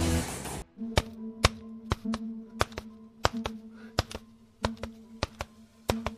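A series of about fifteen sharp, irregular clicks or hits over a faint steady hum, after music cuts off within the first second.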